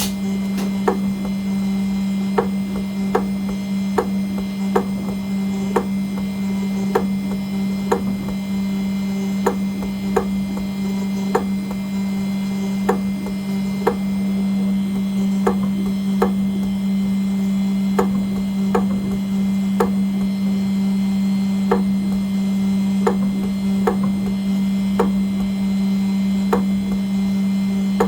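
CNC engraving machine cutting an aluminium nameplate: a steady hum from the running spindle, with a sharp tick roughly once a second at slightly uneven spacing.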